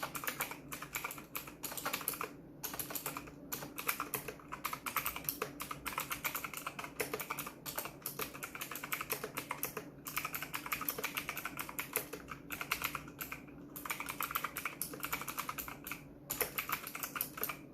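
Fast typing on an Imperion Mech 10 mechanical keyboard with Kailh Blue clicky switches: a dense run of sharp key clicks, broken by a few short pauses.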